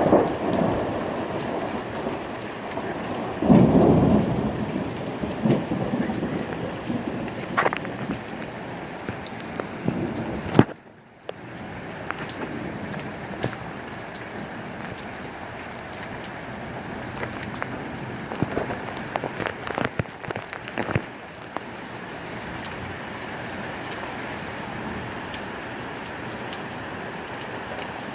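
Thunderstorm: steady heavy rain with two low rolls of thunder, one at the start and a louder one about four seconds in. After a brief drop-out near the middle, the rain carries on steadily.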